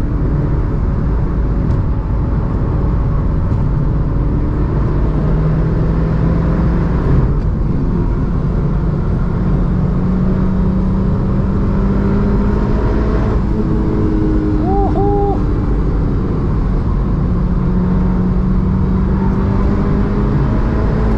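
Mitsubishi Lancer Evolution 6.5 Tommi Makinen Edition's turbocharged 2.0-litre 4G63 four-cylinder running under steady driving, its note slowly rising and easing off, over road and tyre noise. A brief double chirp sounds about fifteen seconds in.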